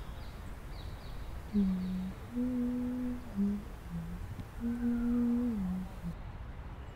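A voice humming a slow tune in held notes, each phrase stepping down in pitch at its end; two phrases, over a steady low rumble.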